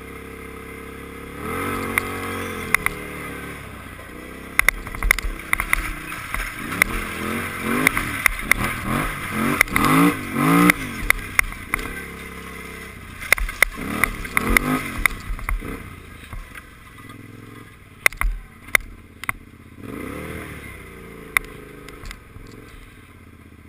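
Kawasaki KFX ATV engine revving up and down again and again as the quad is ridden over lake ice and through dry reeds, with frequent sharp knocks and rattles from the bumps.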